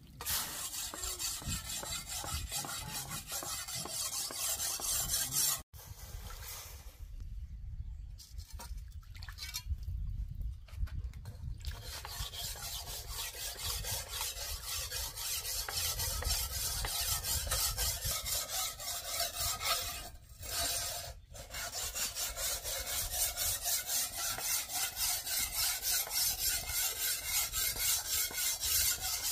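A steel knife blade being sharpened by hand: a file or stone rubs back and forth in a steady rhythm of about two strokes a second, stopping briefly a few times.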